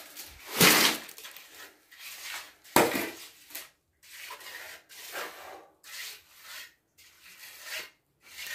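A hand tool scraping through concrete in repeated strokes about once a second, with a sharper, louder scrape about three seconds in.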